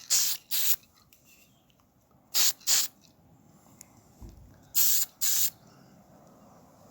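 Spray paint hissing out in short bursts, six in all and paired, as an undercoat of primer goes onto engine parts.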